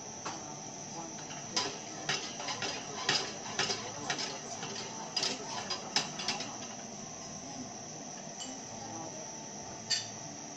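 A tableside crêpe pan on a blue-flamed burner being worked: a run of sharp clicks and taps of metal on the pan for a few seconds, one more near the end, over a steady high-pitched chirring.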